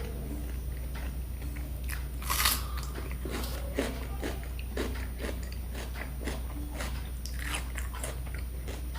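Close-up mouth sounds of biting and chewing crisp fried food, with repeated small crunches and one louder crunchy bite about two and a half seconds in, over a steady low hum.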